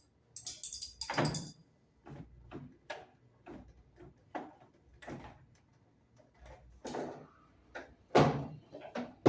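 Plastic wiring-harness connectors being unplugged from a washing machine's control board: a string of irregular clicks, scrapes and knocks, the loudest near the end.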